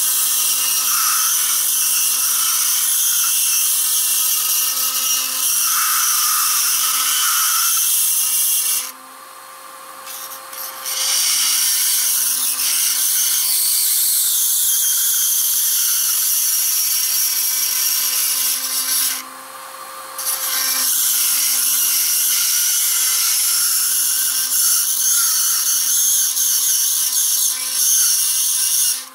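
Handheld rotary grinder with a 1/8 inch double-cut burr cutting the sheet-steel tin of a chainsaw muffler: a loud, high-pitched grinding over a steady motor whine. It stops briefly twice, about a third of the way in and again about two-thirds in.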